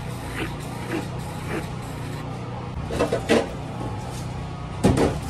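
Steady low hum of bar equipment, with a few soft clicks early on and louder knocks and clatters about three seconds in and again near the end, as a plastic cup and a sauce squeeze bottle are handled.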